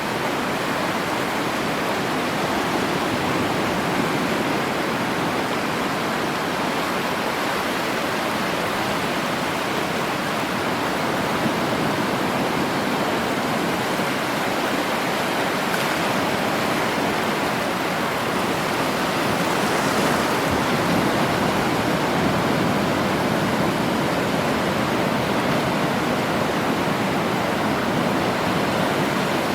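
Sea surf: a steady, unbroken rush of waves, swelling slightly in the later part.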